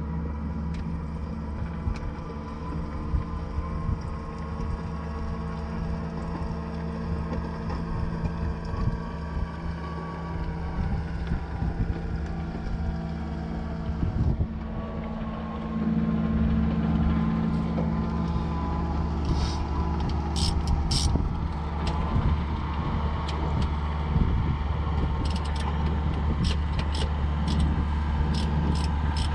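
An engine running steadily, getting a little louder about halfway through, with several sharp clicks in the last third.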